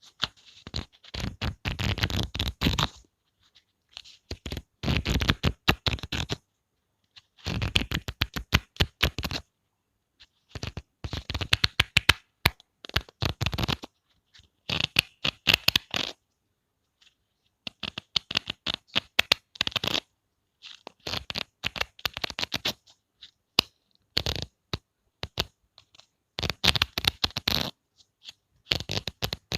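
Pages of a book flicked through by the corner, each run a fast ripple of page snaps. About ten runs of one to three seconds follow one another with short pauses.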